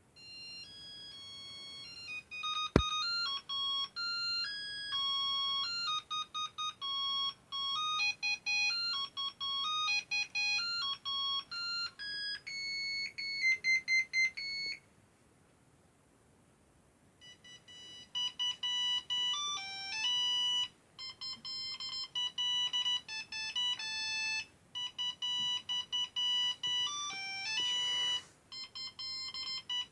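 Nokia 3110 mobile phone playing two beeping single-note ringtone melodies, one after the other, with a short silence between them about halfway through. A sharp click sounds about three seconds in.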